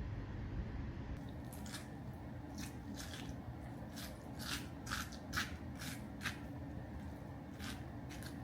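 A series of about a dozen short, crisp clicks or snips at uneven intervals over a steady low rumble.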